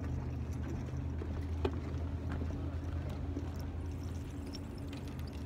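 Steady low engine hum, with scattered light ticks and one sharp tap about a second and a half in.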